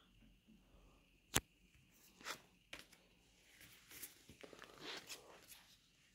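Faint handling of Pokémon trading cards on a cloth-covered surface: one sharp click a little over a second in, a few soft taps, then cards rustling and sliding against each other for a couple of seconds from about three and a half seconds in.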